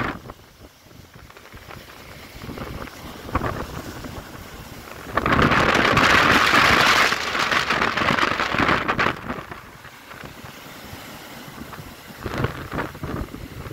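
Storm waves breaking and surging against a concrete harbour wall, with the rush and hiss of surf and spray. A loud crash starts suddenly about five seconds in and lasts about four seconds, and a few shorter crashes follow near the end.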